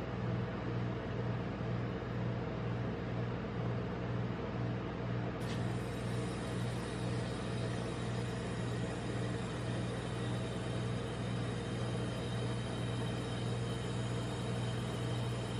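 Steady low electrical hum of a rolled-ice-cream machine's refrigeration compressor running under the cold plate.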